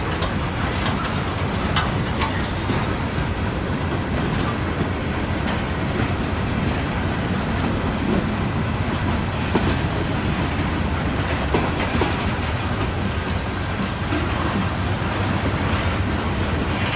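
Freight train cars rolling past close by: a steady rumble and clatter of steel wheels on the rails, with faint scattered clicks.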